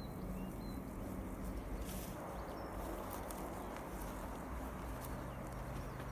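Steady outdoor background noise, with a few faint, short bird chirps in the first second and faint scattered clicks or steps.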